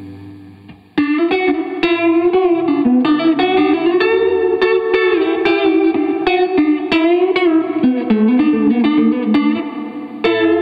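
Electric guitar played through a Dr. Scientist Cosmichorus chorus pedal into a tube amp: a held chord dies away, then about a second in a run of quickly picked single notes starts, their pitch wobbling with the chorus.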